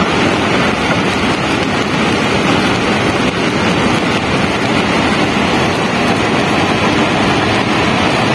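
Loud, steady rushing roar of a flash-flood mountain torrent, with no single impacts standing out.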